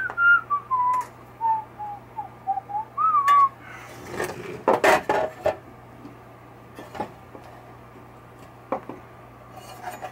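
A man whistles a short tune for about three and a half seconds, the notes wavering down and then rising again. Then loose metal parts and hardware of a pinball chime box clatter and click as they are handled, with a few single clicks later.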